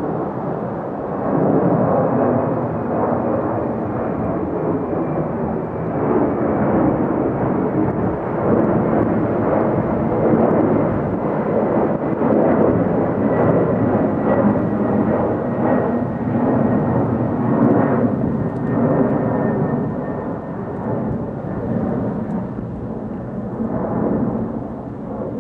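Jet engines of a Delta Boeing 767-300ER airliner passing, a loud, continuous rumble with a faint thin whine that slowly falls in pitch. The roar eases off near the end.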